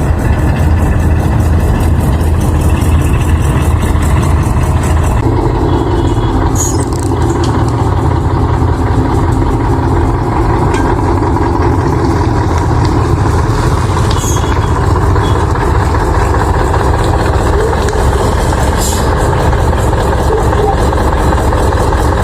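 Heavy vehicle engine running steadily, its tone changing about five seconds in.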